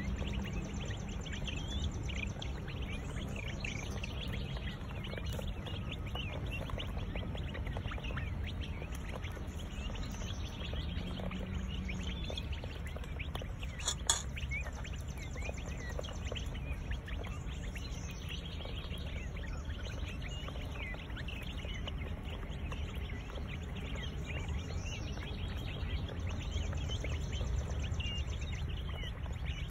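A flock of young bobwhite quail peeping and chirping constantly while feeding, many short calls overlapping, with a single sharp click about halfway through.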